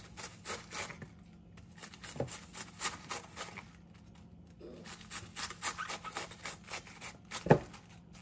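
Kitchen knife shaving thin shreds off half a head of green cabbage held over a bowl: crisp slicing strokes about three a second, pausing briefly twice, with a single louder thump near the end.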